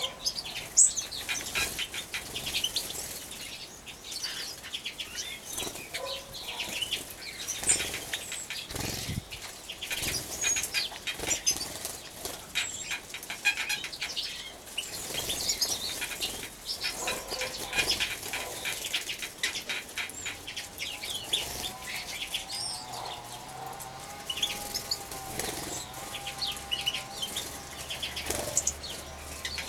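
Small finches, European goldfinches and serins, bathing in a water trough: repeated splashing and wing-fluttering with short high chirps and twitters. A lower wavering sound joins in for several seconds near the end.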